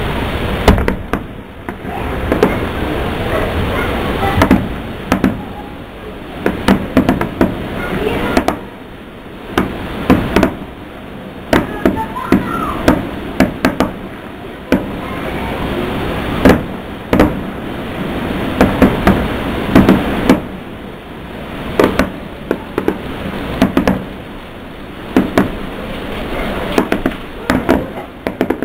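Aerial fireworks shells bursting at a distance: sharp bangs and cracks in irregular clusters, a second or two apart.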